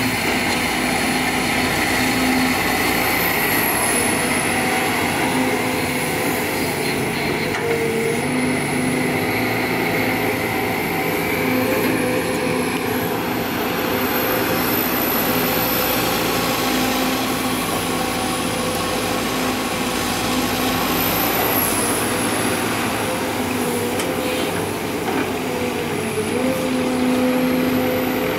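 Heavy diesel machinery running steadily at a worksite, engine tones rising and falling with load, with a thin high whine that wavers in pitch.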